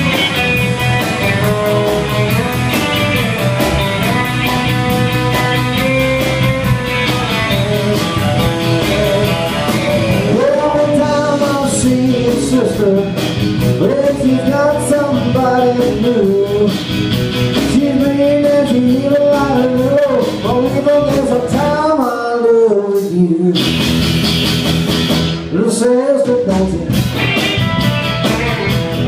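Live rock and roll band playing: electric and acoustic guitars with drums, and a male lead vocal coming in about ten seconds in. Twice in the second half the low end of the band drops out for a moment, leaving the voice.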